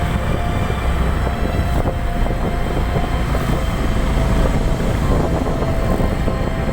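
A vehicle on the move: a steady, loud low rumble of engine and road noise.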